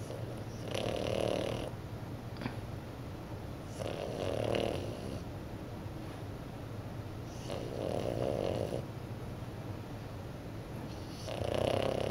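French bulldog puppy snoring in its sleep: four snores, one roughly every three and a half to four seconds, each lasting about a second.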